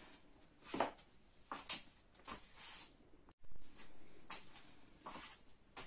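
Pieces of cut tomato being dropped and packed into a large glass jar: a few faint, short soft knocks and rustles at irregular spacing. The sound cuts out for an instant about halfway.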